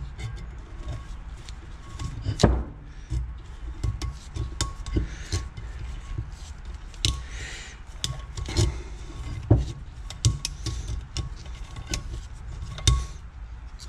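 Irregular metallic clicks, taps and scraping as a stuck, bent valve spring is twisted out of a Yamaha YZ250F cylinder head. One sharp click about two and a half seconds in is the loudest.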